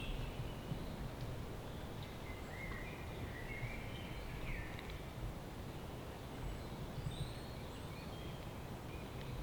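Woodland ambience: a steady low background rumble with a few short bird chirps and calls scattered through.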